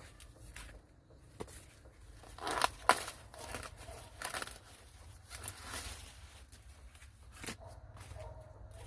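Irregular rustling and crinkling with a few sharp snaps, as of dry plant material being handled, loudest about two and a half to three seconds in.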